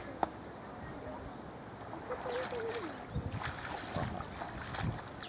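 Faint voices in the open, with a single sharp click just after the start and a few low bumps near the middle and end.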